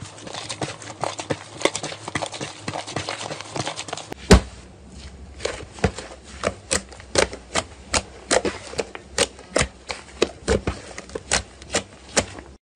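Slime being squished and worked by hand: a dense run of small crackles and pops, then a thump about four seconds in, followed by a steady series of sharper pops about twice a second that cuts off suddenly near the end.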